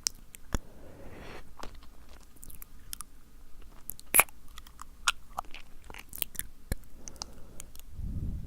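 Close-miked wet mouth sounds: irregular tongue clicks and lip smacks, sticky and moist, with a low breathy rush near the end.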